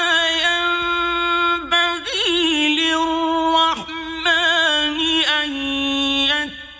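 A man reciting the Qur'an in Arabic, chanted melodically with long, high held notes decorated by wavering ornaments and a few short breaks, trailing off near the end.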